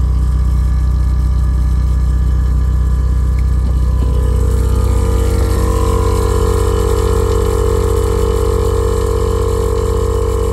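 VIAIR air compressor of an Air Lift 3P air suspension running with a loud, steady hum, its tone shifting higher about four and six seconds in. It keeps running without cutting out, the sign that its fault of shutting off 10–15 seconds after starting is fixed.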